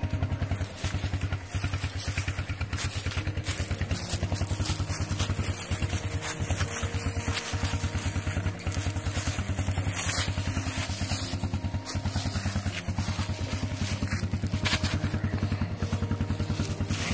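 Four-wheeler (ATV) engine idling steadily, with a few knocks and scrapes from cedar poles being pulled off the trailer and handled.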